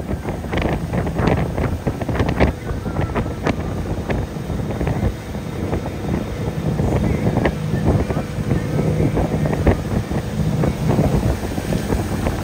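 Motorboat engine running steadily at towing speed, under the rush and splashing of its churning wake, with wind buffeting the microphone.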